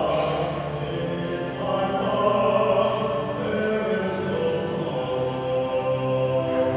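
Liturgical singing by a choir or cantor with a low instrumental accompaniment, in long held notes.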